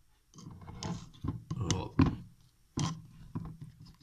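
Handling noises of a peanut butter jar being scooped from and worked by hand: irregular rustles and soft knocks, with sharper clicks about two seconds in and again near three seconds.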